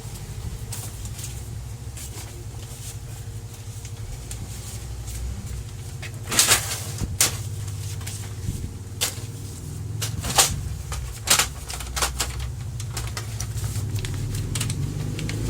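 Sharp clicks and knocks, a dozen or so in the second half, over a steady low hum from a Brother MFC-L2740DW laser printer being handled and set up for a test copy.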